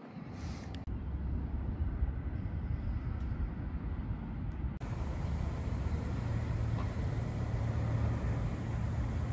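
Steady low outdoor rumble with no distinct events. It grows over the first second and changes character about five seconds in.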